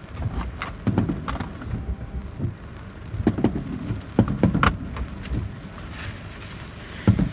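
Aerial firework shells bursting in a series of irregular booms and cracks, with a rumble underneath. The loudest cluster of bangs comes about four to five seconds in.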